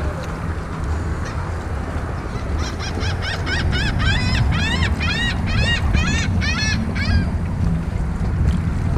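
A bird calling a quick series of about a dozen loud notes, each rising and falling in pitch, that runs for about four and a half seconds starting a few seconds in, over a steady low rumble.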